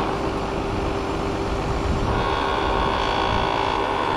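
An engine running steadily at a constant speed, with a higher tone joining in about two seconds in.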